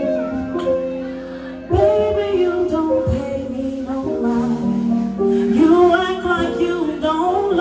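Live music: a singer with instrumental accompaniment, holding notes and sliding between them. The music gets louder a little under two seconds in.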